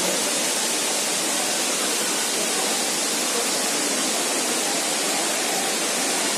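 Waterfall rushing: a steady, even noise that holds at one level throughout.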